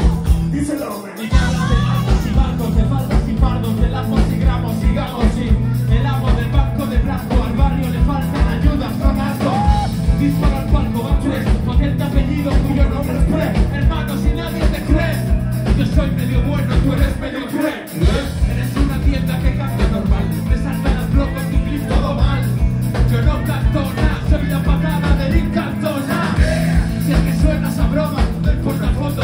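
Live band playing a rumba-rock song at full volume, with a steady drum beat and bass and vocals over it. The drums and bass drop out briefly about a second in and again around 17 seconds in.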